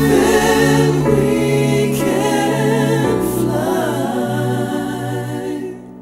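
Male vocal group singing in close multi-part harmony, a cappella or nearly so, with a deep bass voice under the chords. The music starts to fade out near the end.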